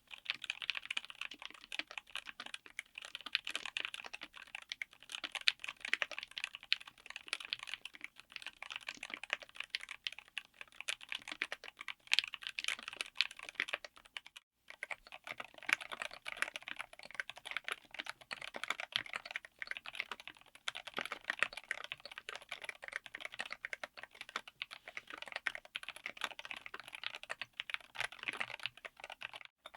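Typing on a custom mechanical keyboard fitted with linear switches: a fast, continuous stream of keystrokes, with a brief break about halfway through.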